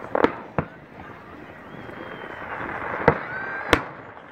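Aerial fireworks shells bursting: two sharp bangs in the first second, then two more about three seconds in.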